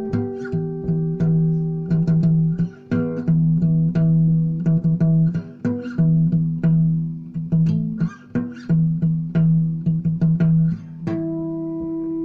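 Instrumental music on plucked strings, likely guitar: picked notes over sustained low bass notes, moving in phrases of about three seconds and settling on a held chord about eleven seconds in.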